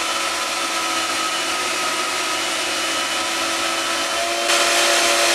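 Bauer portable bandsaw running and cutting through a small piece of 5/16-inch steel key stock: a steady motor whine with the blade rasping through the metal. It gets louder about four and a half seconds in.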